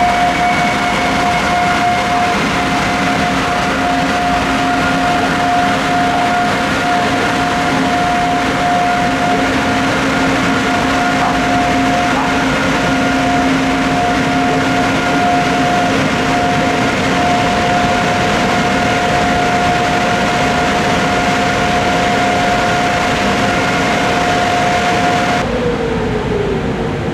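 Intermodal (combined-transport) freight train pulling out slowly, its wheels squealing in one steady high-pitched tone over the rumble of the wagons. The squeal stops abruptly near the end, and a tone falling in pitch follows.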